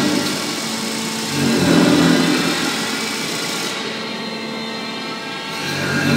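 Large disc grinder on a Clansman Dynamics G30P manipulator arm spinning with a steady machine hum, grinding into a metal block with a louder surge about one and a half seconds in and again near the end, when the disc bites and throws sparks.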